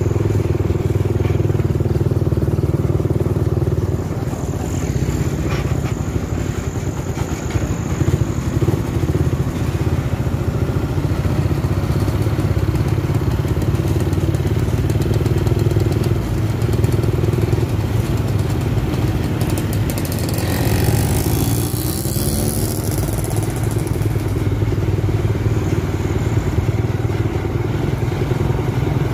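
Steady low drone of vehicle engines on the road close behind a loaded sugarcane truck. For about four seconds, some twenty seconds in, a rushing hiss rises over it.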